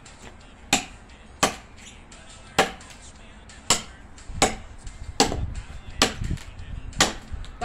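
Small machete chopping dry fallen branches for firewood: about eight sharp whacks of the blade biting into the wood, roughly one a second.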